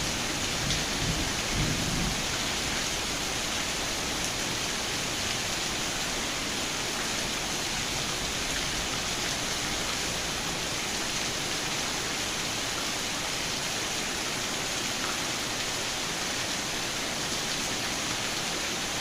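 Steady rain, an even hiss throughout, with a low rumble of thunder dying away in the first couple of seconds.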